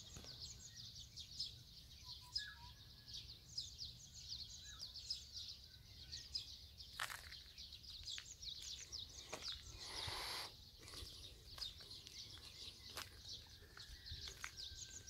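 Many small birds chirping continuously in a morning chorus, with a few lower whistled notes mixed in. A short rushing noise about ten seconds in.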